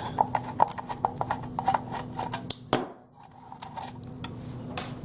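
Clicks and light knocks of a small metal electronics case being handled and opened, with a sharper click just before three seconds in, over a faint steady hum.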